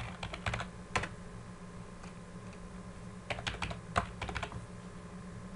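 Typing on a computer keyboard: two short bursts of keystrokes, one at the start and one about three seconds in, with a pause between them.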